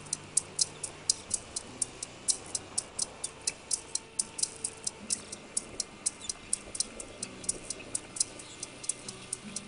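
Quick, steady ticking, about four ticks a second, with soft low music under it.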